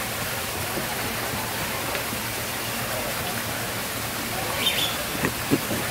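Steady rush of running water, like a small waterfall or stream feeding a pond. A short high chirp and a couple of soft knocks come near the end.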